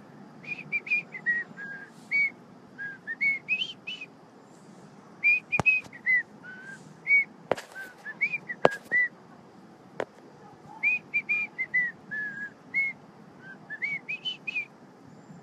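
A man whistling a tune in three short phrases of quick, gliding notes, with four sharp clicks in the middle.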